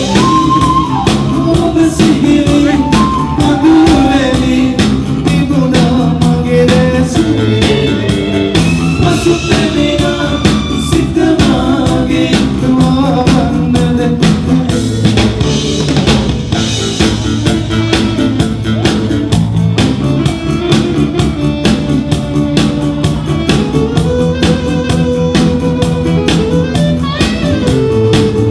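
Live band playing a Sinhala pop song: a male lead vocal over drum kit, electric bass and keyboards, with a steady drum beat.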